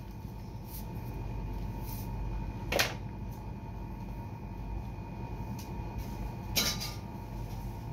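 Two short knocks, about four seconds apart, over a steady low room hum with a faint steady tone.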